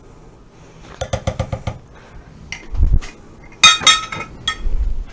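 Kitchenware clinking and knocking against a saucepan while peanut butter is scraped in: a quick run of about six light taps, then a low thump, a loud ringing clink, and a duller knock near the end.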